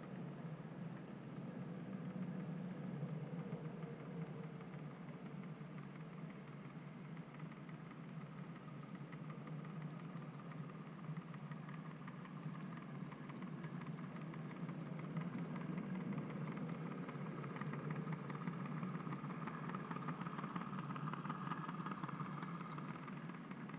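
OO gauge model railway stock running on the track: a steady low electric-motor hum and wheel rumble, growing a little louder in the last third as stock passes close by.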